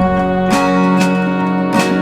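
Background music led by a strummed acoustic guitar, with sustained notes and a strum about every half second.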